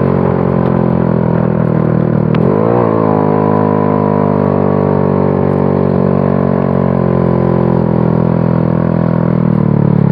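Small motorcycle's engine running steadily under throttle, heard from the rider's seat. Its pitch dips briefly and rises again about two and a half seconds in.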